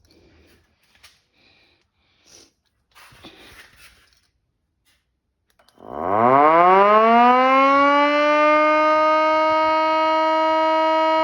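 3D-printed eight-port air raid siren starting up about halfway through: a loud wail that rises quickly in pitch, then holds a steady tone. Before it, a few faint knocks and handling sounds.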